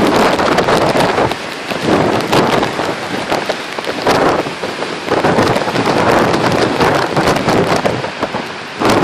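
Strong storm wind buffeting the microphone, surging and easing in gusts every second or two with a rough crackling rush.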